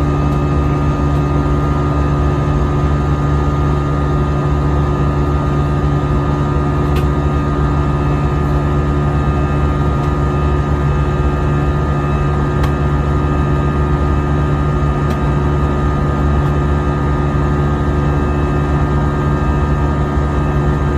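Steady drone inside the cabin of an Airbus A320 airliner in flight: engine and airflow noise with a few constant hums, and a few faint ticks.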